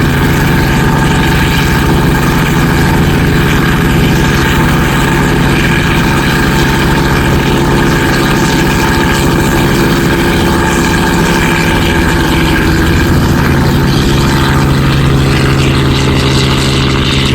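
Engine running steadily at idle, loud and unchanging, with a strong low hum and several steady higher tones over it.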